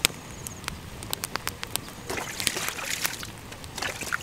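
Crabs frying in a wok over a wood fire: a steady sizzle, louder in the middle, with many irregular sharp pops and crackles.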